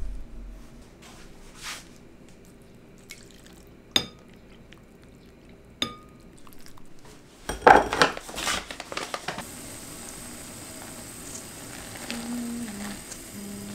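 A stainless mesh strainer knocks against the rim of a pot twice, each knock a sharp click with a short metallic ring. About seven and a half seconds in there is a loud splash and slosh as the strainer of barley is plunged into a glass bowl of cold water, and then a steady hiss.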